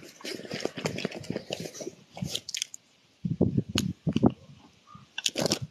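Irregular crunching and rustling in clusters, with a short pause about halfway: footsteps on grass and gravel, mixed with handling noise from the phone and rod.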